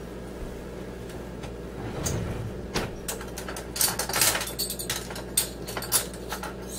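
Kitchen handling noises: irregular knocks, scrapes and rustles of utensils and containers, starting about two seconds in, over a steady low hum.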